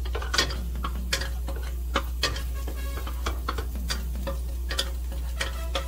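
Metal spatula stirring in a frying pan, with irregular knocks and scrapes against the metal over frying sizzle. A steady low hum runs underneath.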